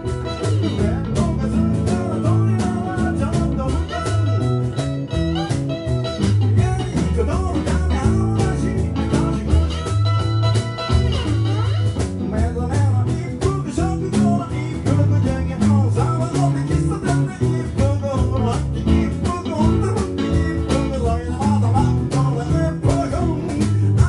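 Live blues played on several guitars, hollow-body archtop electrics among them, keeping a steady groove, with a harmonica on a neck rack playing over it.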